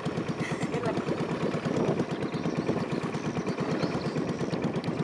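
Small river boat's engine running steadily under way, a fast, even chugging.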